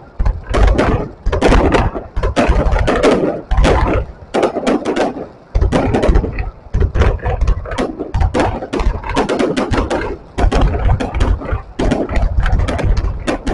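Fireworks going off in rapid, irregular volleys of sharp bangs and crackles, several a second.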